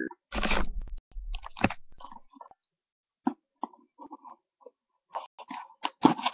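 Short rustles, crinkles and clicks of something being handled, with a dull bump on the microphone about half a second in, picked up by a netbook webcam's microphone.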